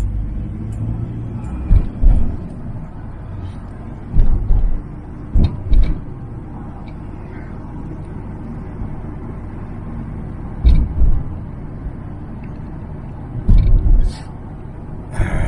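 Steady engine and road rumble of a van driving, heard from inside the cab. Several short, loud thumps break through as it jolts over bumps and potholes in the road.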